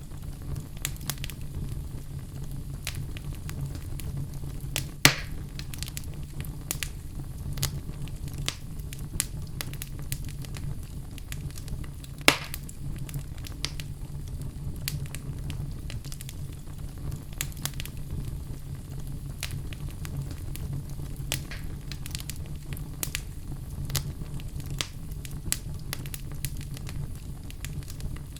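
Wood logs burning in a fireplace: a steady low rumble of the flames with frequent small crackles, and two louder sharp pops, about five seconds in and about twelve seconds in.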